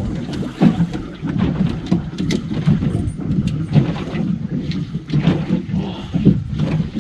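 Small aluminium tinny rocking on open water: waves slap and knock against the hull in uneven short hits, over a rumble of wind on the microphone.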